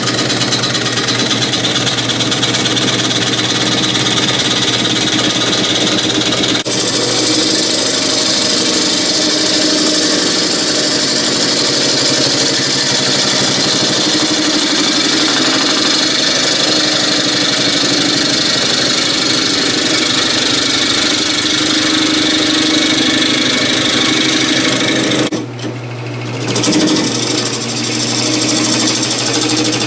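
Power tool running steadily while cutting green cherry wood, with a brief stop near the end before it starts up again.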